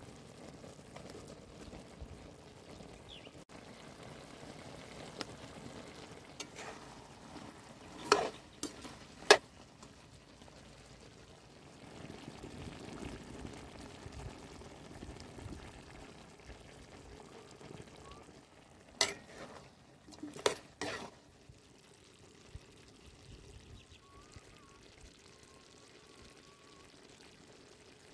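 Chicken feet cooking in a pan of Sprite-based sauce, bubbling steadily. A utensil clinks sharply against the pan twice about a third of the way in, and three more times about two-thirds in.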